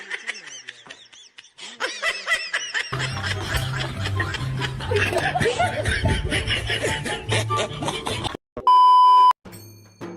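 Dubbed-in laughter sound effects, high-pitched giggling and snickering, over background music with a stepping bass line that comes in about three seconds in. The track breaks off briefly near the end for a loud, steady, beep-like tone lasting under a second.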